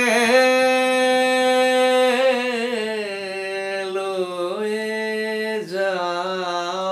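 A person singing a slow Bengali folk song, drawing out long held notes with slow wavering ornaments. The pitch steps down partway through.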